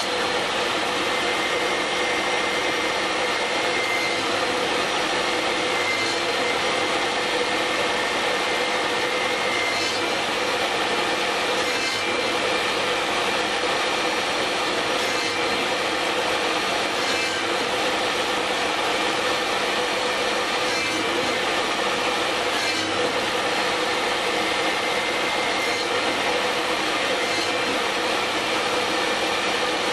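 Table saw running steadily, its motor and blade spinning, with no change in level.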